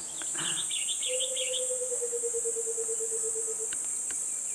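Steady high-pitched chorus of insects, crickets, with a short chirping trill in the first second and a lower pulsed call that sets in about a second in, falls slowly in pitch and stops near the end.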